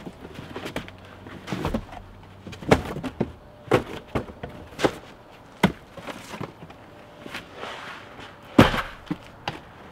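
Cardboard boxes being handled: flaps of a large shipping box rustling and scraping, with a run of knocks and thuds as smaller boxes inside are pulled out. The loudest thud comes near the end.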